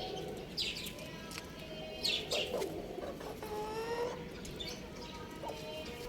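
Chicks peeping in short, high chirps, mixed with several longer, lower pitched calls from chickens.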